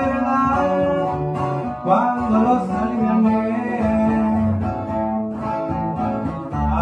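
Two acoustic guitars and a bass guitar playing a Mexican song together, strummed and plucked, with a bass line underneath.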